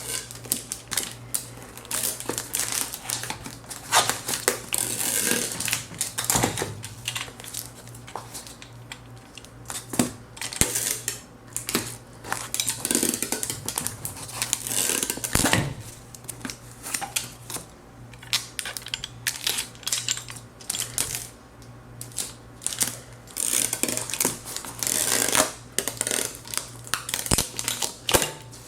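Packaging being handled: irregular rustling and crinkling with light clicks and knocks, as plastic wrap and a small box are worked by hand. A faint steady low hum runs underneath.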